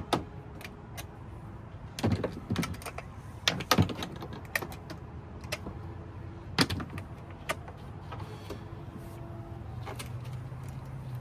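Cable ends and wires being pulled off lead-acid golf-cart battery terminals and handled: scattered metallic clicks and knocks, several close together about two to five seconds in.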